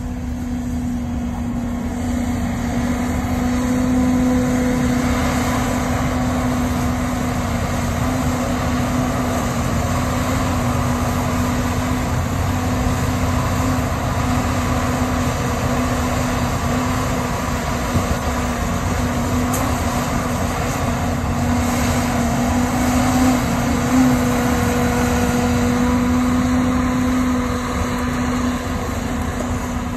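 Tigercat 234 knuckleboom log loader's diesel engine running steadily under hydraulic load as the boom swings and the grapple picks up and loads logs. It gets a little louder about two seconds in.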